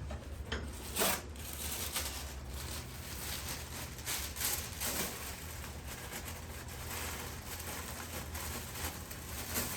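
Rustling and scraping handling noise, with a sharp snap about a second in and a few fainter knocks later, over a steady low hum.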